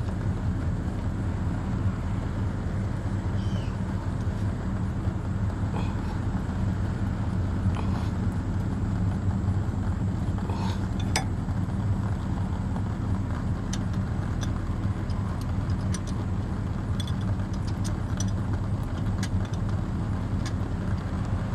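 An engine running at a steady idle, an even low hum that holds constant, with a few faint clicks and clinks over it.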